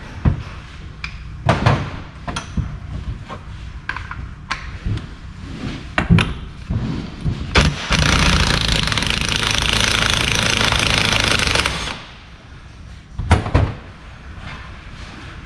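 Cordless impact wrench hammering for about four seconds on the transfer case's front drive flange nut, then cutting off. Before and after it come scattered metal knocks and clanks as the case and tools are handled on the bench.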